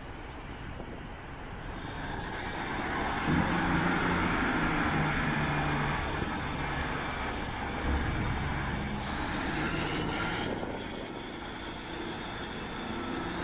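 Class 150 Sprinter's underfloor Cummins diesel engines revving hard as the unit pulls away. The sound swells about three seconds in and stays loud, a screaming engine note, with a single knock about eight seconds in.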